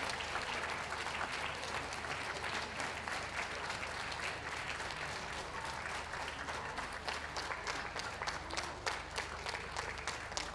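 Ringside audience applauding steadily. About halfway through the clapping thins into fewer, separate claps.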